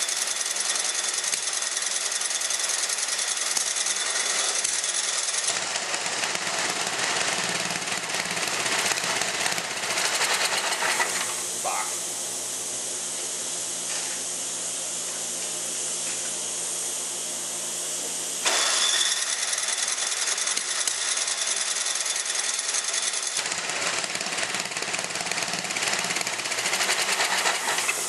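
Tecumseh engine on a Toro snowblower being cranked and sputtering, blowing back out through the carburetor. The owner takes the blow-back to mean a bad intake valve. The sound changes several times, with a steadier, even-pitched stretch in the middle.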